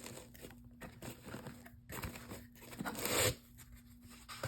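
Lens box packaging being handled and unpacked: crinkling and rustling of the packing, with a louder rustle about three seconds in.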